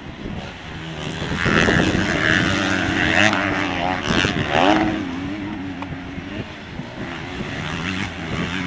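Motocross bike engines revving hard on the track, the pitch rising and falling with the throttle, loudest from about one and a half to five seconds in.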